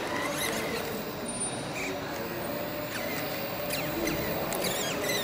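RC Deutz-Fahr Agrotron model tractor's electric drive whirring as it pulls a loaded dump trailer through deep sand, with faint voices in the background and a few high wavering squeaks near the end.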